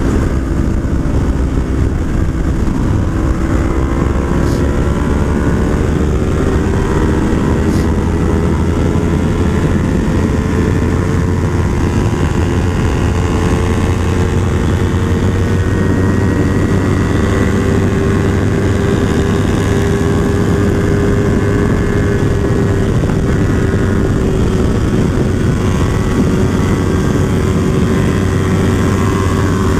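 Yamaha R3's parallel-twin engine running at high revs at highway speed, its pitch slowly rising as the bike gains speed and then holding steady, under heavy wind rush.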